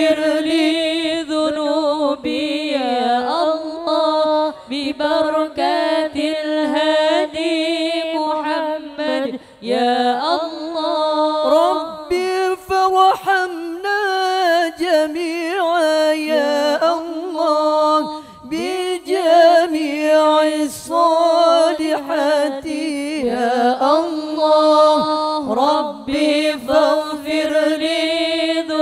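Women's voices chanting Arabic devotional verse (sholawat) over microphones, with no instruments. The tune moves in long, bending phrases with short breaks for breath.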